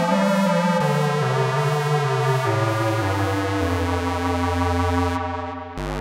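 Yamaha CS01 analog monosynth playing a line of notes that steps down in pitch, each note trailing into tape echo. Near the end the bright top fades briefly, then a new low note starts and is held.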